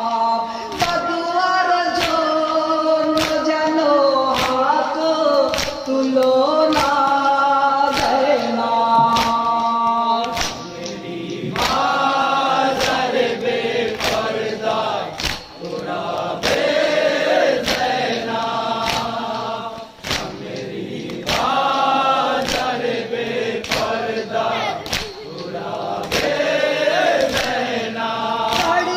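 Men chanting a noha, a mourning lament, together, over regular chest-beating (matam) slaps at about two a second.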